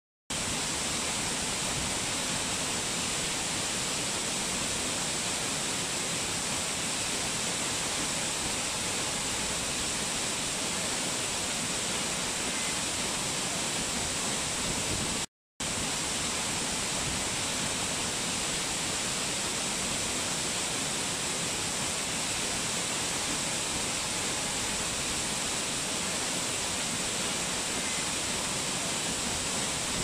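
Wide curtain waterfall's steady rush of falling water, an even hiss that is brightest in the high end. The sound cuts out to silence for a split second right at the start and again about halfway through.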